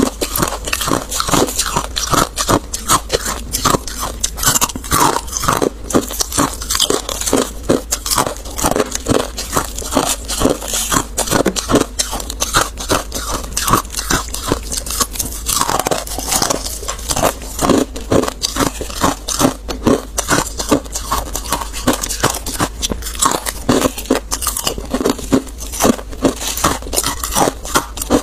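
Frost-covered ice being bitten and chewed close to a clip-on microphone: a dense, unbroken run of sharp crunches and crackles.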